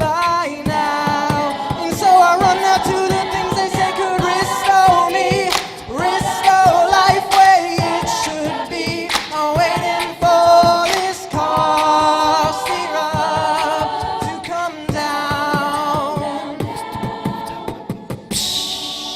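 A cappella group singing sustained chords, with vocal percussion clicking out a beat beneath the voices. Near the end a bright hiss cuts in and fades away.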